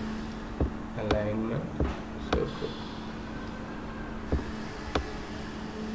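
Irregular sharp taps or clicks, about seven over a few seconds, over a steady low electrical hum, with a short hummed vocal sound about a second in.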